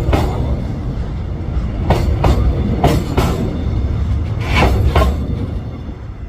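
Train rolling past, its wheels clacking over the rail joints in quick pairs about once a second over a steady low rumble, fading near the end.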